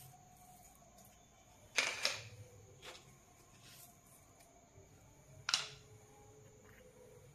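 Soft clicks and taps of a spoon and a spice container against a steel bowl as spices are added to sattu flour: a handful of short taps, the loudest about two seconds and five and a half seconds in, over a faint steady hum.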